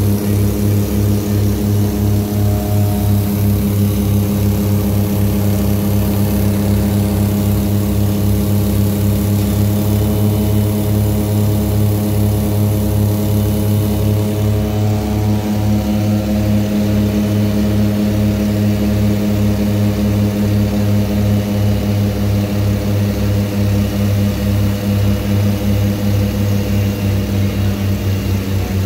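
Cabin drone of a small twin-engine propeller airplane on approach to landing: a steady propeller hum with a fast throbbing beat, the upper hiss easing off a little about halfway through.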